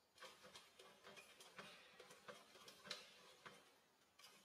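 Faint, irregular clicks and smacks of a macaque chewing food, a few a second.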